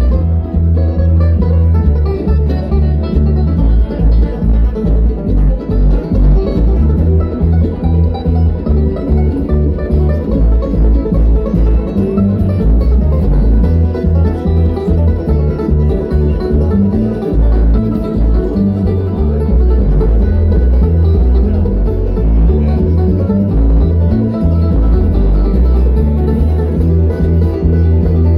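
Bluegrass band playing an instrumental jam live: acoustic guitar, five-string banjo and upright bass, with a heavy low end.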